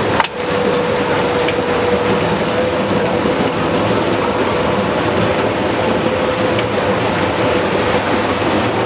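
A boat's engine running steadily with a constant hum, over the rush of water along the hull and wind on the microphone. There is a short break in the sound just after the start.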